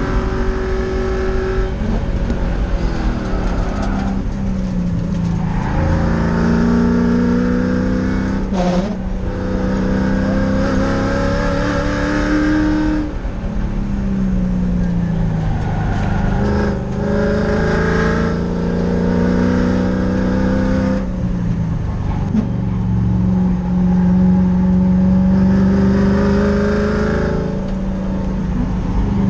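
Race car's engine heard from inside the cockpit, driven hard: its pitch climbs and drops again several times as the throttle is worked.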